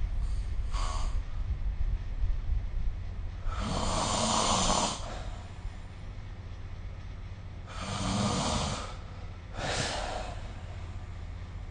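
A sleeping person snoring: a long snore about four seconds in, another about eight seconds in, and a shorter breath right after it. A steady low rumble runs underneath.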